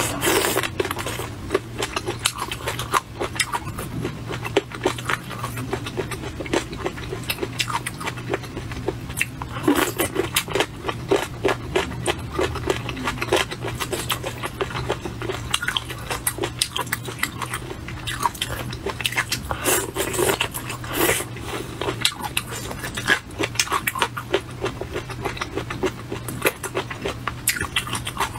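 Close-miked eating of chicken feet in chili sauce: wet chewing, sucking and lip smacks as a dense run of small irregular clicks, with a few louder wet bursts now and then, over a low steady hum.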